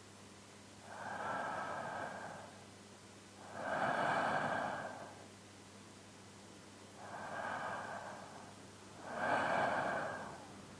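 A man's slow, deep sleeping breaths, close up. There are two full breath cycles, each a softer breath followed by a louder one, with quiet pauses between.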